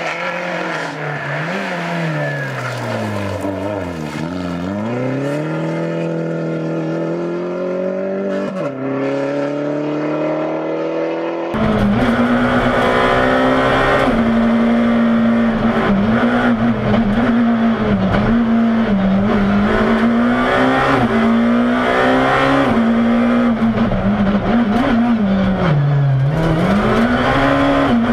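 Rally car engines at stage speed. First the engine note falls, as when braking and changing down, then climbs again as it accelerates. After a sudden cut about eleven seconds in comes a louder in-car recording of a rally car's engine held high in the revs, dipping briefly at each gear change.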